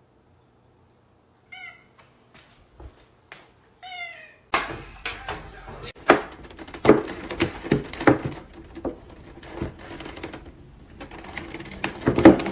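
A cat meows twice, short falling calls. About four and a half seconds in, a busy, irregular clatter of knocks and thumps starts and carries on, louder than the meows.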